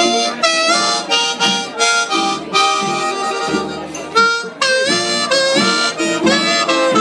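Live band playing the instrumental opening of a country ballad, a reedy wind-instrument lead carrying the melody over the chords.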